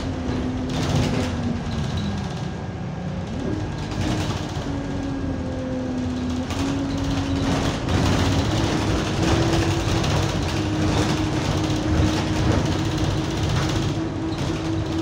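Alexander Dennis Enviro200 bus with an Allison automatic gearbox, heard from inside the saloon while under way: a steady engine drone carrying a whining tone that moves in steps, falling early on and stepping up twice later. The gearbox is running in limp mode with no kickdown.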